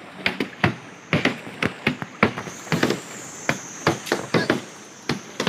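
An irregular series of sharp striking blows, about two or three a second, some with a short ring.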